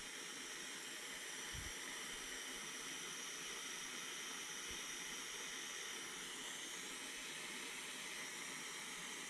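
LEXIVON LX-770 butane soldering iron burning on its highest setting: a faint, steady hiss of the gas flame.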